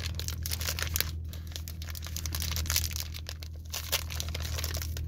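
A crinkly white mooncake wrapper crumpled and torn by hand, a dense run of irregular crackles throughout, over a steady low hum.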